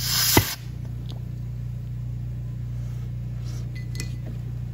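A short hiss of aerosol penetrating oil being sprayed stops about half a second in, with a sharp click at its end. After that a steady low electrical hum runs on, with a few faint metal clicks of pliers working on a brake caliper.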